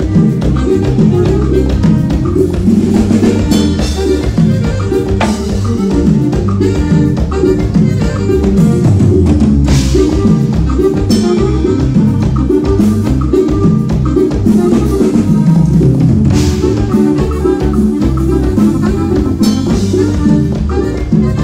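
Loud Latin dance music from a live band, with a drum kit keeping a steady beat over a strong bass line.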